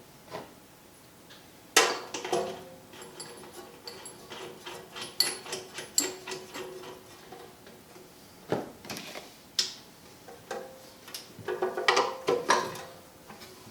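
Irregular metallic clicks, taps and a few louder clunks of hand tools and saw parts being handled, as a new steel-cutting blade is fitted onto a chop saw's arbor.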